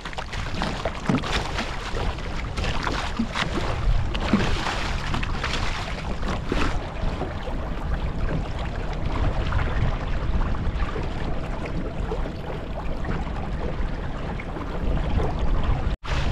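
Small sailing dinghy under way: water rushing and splashing along the hull, with wind buffeting the microphone.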